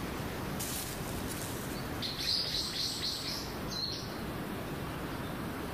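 Bonin white-eyes calling: a fast run of high chirps about two seconds in, lasting a second and a half, then a brief call near the four-second mark, over a steady background hiss.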